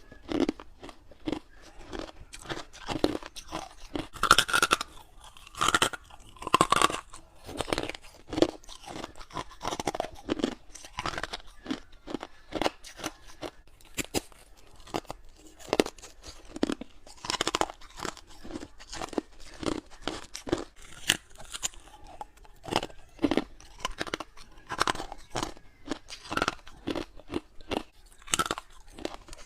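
Close-up crunching and chewing of frosty ice cubes from a humidifier tray, a steady run of sharp bites and crunches with brief pauses between clusters.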